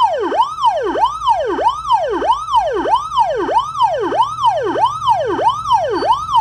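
Police-style '113' motorbike siren sounding loudly on a fast yelp, its pitch sweeping up and down a little over twice a second in an even, repeating cycle.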